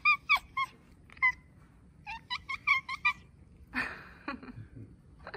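Two domestic cats chattering at a crow: quick runs of short, high chirps, with a run of about seven together around the middle. A rougher, noisier call comes near the end. This chattering is the excited prey call cats make when watching a bird they can't reach.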